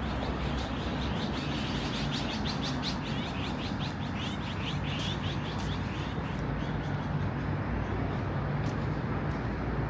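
Small birds chirping in a rapid, dense chatter that thins out after about six seconds, over a steady low rumble of city traffic.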